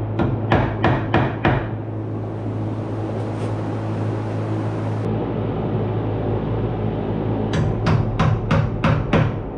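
Hammer strikes driving the nails of a blue plastic electrical box into a wooden wall stud: a quick run of about three blows a second, a few seconds of steady noise, then another run of blows near the end.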